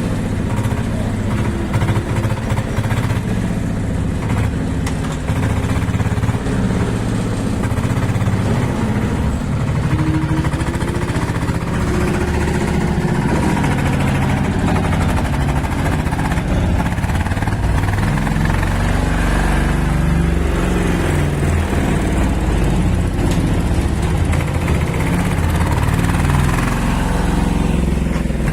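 Small diesel engine of a compact earthmoving machine running at working revs, its note shifting up and down with the load.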